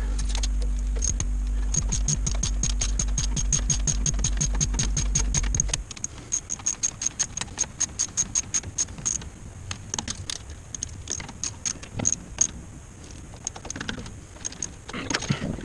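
Ratchet wrench clicking in quick, even runs of about seven or eight clicks a second, then in shorter irregular runs, as the lift pump is bolted onto the Cummins 6BT engine. A steady low mechanical hum under the clicks cuts off suddenly about six seconds in.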